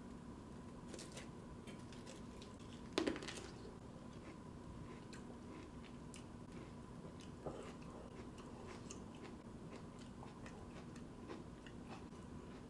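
A single crisp bite into a raw tomatillo about three seconds in, the loudest sound, followed by quiet chewing with small crunches. Before the bite there is faint crackling as the papery husk is peeled off.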